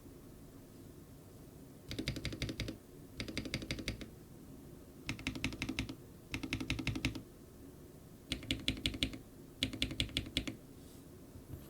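Mechanical keyboard with lubed Glorious Holy Panda switches, an acrylic plate and stock keycaps, typed on in six quick bursts of rapid keystrokes, each under a second long with short pauses between.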